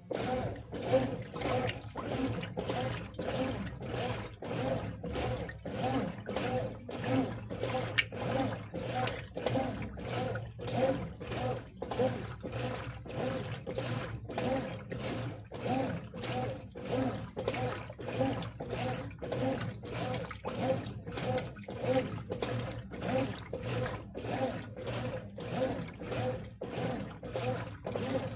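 Brastemp Advantech Wash 6 kg top-loading washing machine agitating in its first rinse on the delicate cycle: the agitator swishes back and forth about twice a second, sloshing the rinse water, over a steady motor hum.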